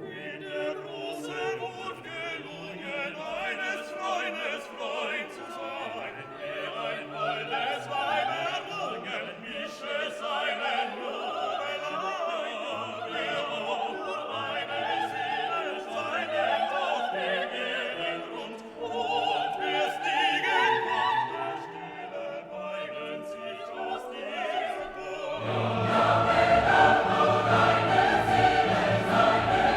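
Background music: classical choral singing with an orchestra, swelling louder and fuller near the end.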